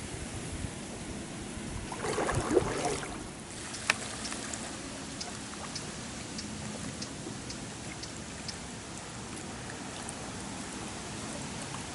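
Kayak paddles working the water of a slow river: blades splashing and dripping over a steady wash of water noise, with a louder burst about two seconds in and a sharp click about four seconds in, then light ticks about twice a second.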